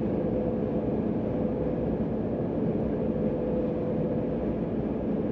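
GMC Hummer EV driving at highway speed: steady road and tyre noise with a steady hum running through it.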